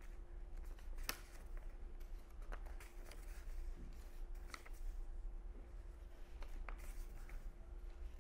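Faint rustling and light tapping of paper being handled and written on at a desk, in short scattered clicks, over a steady low background hum.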